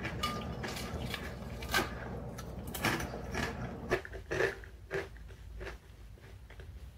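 Someone chewing crunchy chips: a run of irregular crisp crunches that die away a little before the end.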